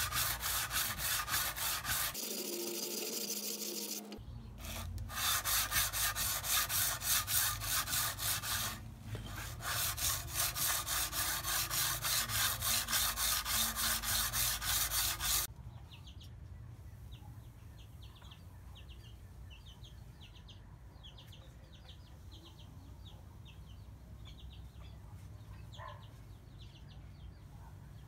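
Steel katana blade scraping back and forth on a whetstone in quick, even strokes, about two to three a second, as the blade is sharpened and polished. The strokes stop suddenly about halfway through, leaving only faint bird chirps.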